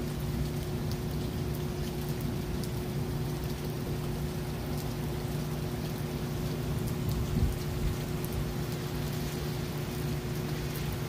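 Steady rain with scattered raindrop ticks, over a constant low hum. There is one brief thump about seven seconds in.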